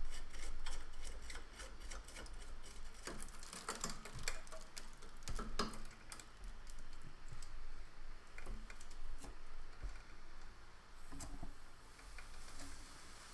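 Irregular small clicks, taps and light knocks of hands handling equipment, with a denser cluster about three to six seconds in.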